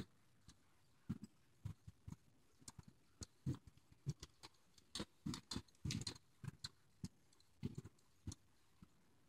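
Soft, faint hoofbeats of a bay roan Quarter Horse mare loping on deep dirt arena footing: an uneven run of dull thuds that is loudest about five to six seconds in, as she passes close by.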